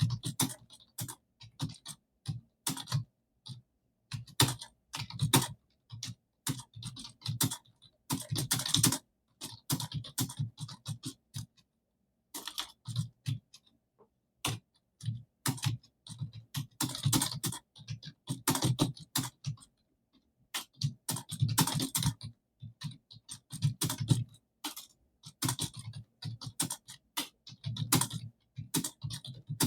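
Computer keyboard being typed on rapidly, at about 50 words a minute, in runs of quick key clicks broken by short pauses.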